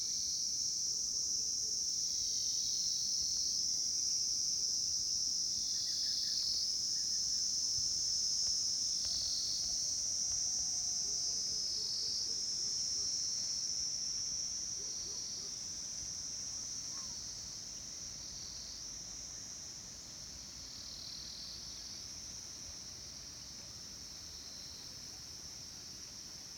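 Chorus of insects in a Himalayan hillside setting, shrilling in one steady high-pitched drone. A lower pulsing call joins in about every three seconds, and the whole chorus grows somewhat quieter about halfway through.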